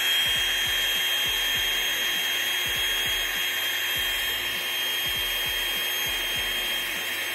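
Small handheld electric inflator running steadily with a high whine, blowing air through the valve into a camping air bed that is being inflated.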